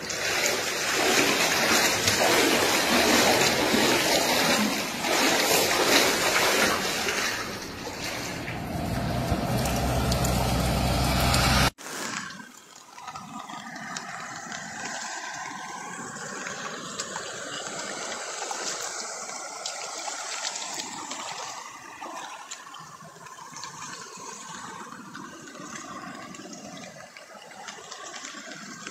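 Floodwater rushing: a loud, steady rush of water for about the first twelve seconds, cut off suddenly, then a quieter, uneven flow of muddy floodwater running across a road.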